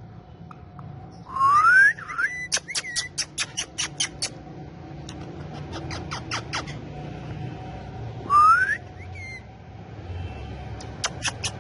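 Male ringneck parrots whistling and chirping: two loud rising whistles, one about a second and a half in and one near the end, each followed by a quick run of short, sharp clicking chirps.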